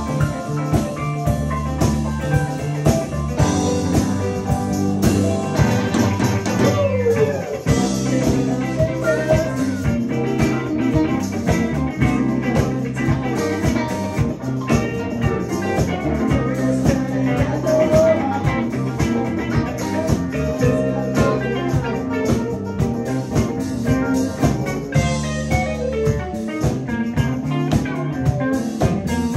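Live band playing with no singing: electric guitar lead with bent, sliding notes over drum kit, bass and keyboards.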